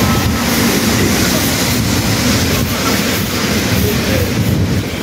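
Stormy weather on the microphone: a loud, steady rush of wind and rain with a deep rumble underneath.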